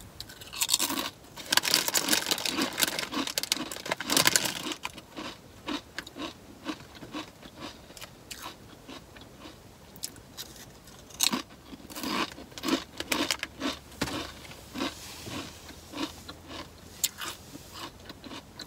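Crunchy chips being bitten and chewed: loud crunching for the first few seconds, then steady chewing about twice a second, with fresh crunches from another bite about halfway through and again near the end.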